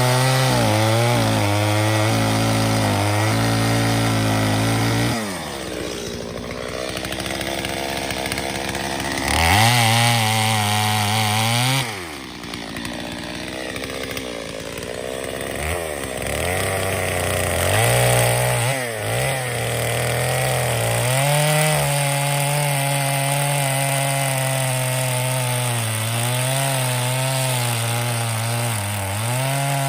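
Two-stroke chainsaw running at full throttle while cutting into a log round, its engine dropping back toward idle twice and revving up again for the next cut.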